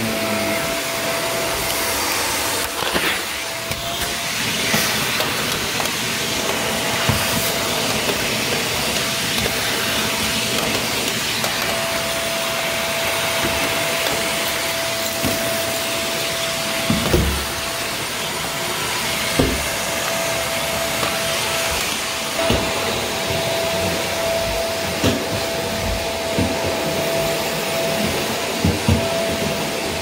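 Upright vacuum cleaner running steadily, with a constant motor whine over the rush of suction, vacuuming a heavily soiled, debris-strewn carpet. A few short knocks and rattles break in, the loudest a little past halfway.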